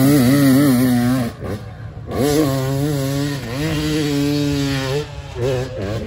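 Dirt bike engine revving hard and pulling under load as the motorcycle launches up a steep hill-climb slope. The engine sound drops away briefly about a second and a half in and again near the end.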